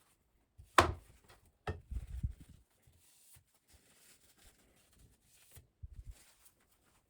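Sharp knocks and thuds of hard objects being handled on a work surface: a loud knock about a second in, another just after, further low thuds near the end, with faint light scraping in between.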